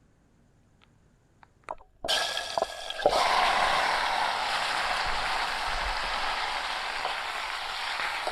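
Marinated chicken frying in hot oil: a loud, steady sizzle that starts suddenly about two seconds in, grows louder a second later, and cuts off abruptly at the end.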